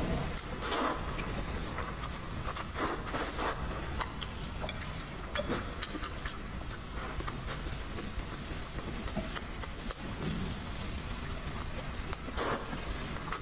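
Close-miked eating of glass noodles: slurping and chewing with wet mouth clicks, with louder slurps about a second in, around three seconds in, and near the end. A steady low rumble runs underneath.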